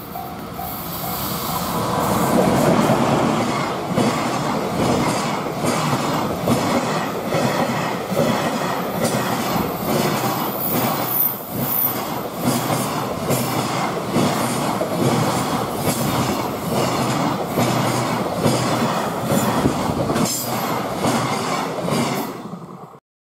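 JR Freight EF210 electric locomotive passing close by at speed, followed by a long train of container wagons whose wheels clatter continuously over the rails, with a brief high-pitched wheel squeal near the middle. A level-crossing warning bell is heard at the start before the train drowns it out, and the sound cuts off abruptly near the end.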